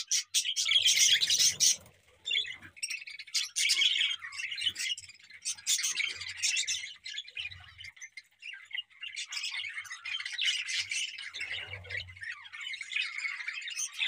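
A flock of budgerigars chirping and chattering together, dense and continuous, loudest in the first couple of seconds with a brief lull just after.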